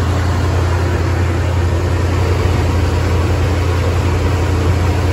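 Car engine idling steadily, heard up close over the open engine bay, with a steady low hum.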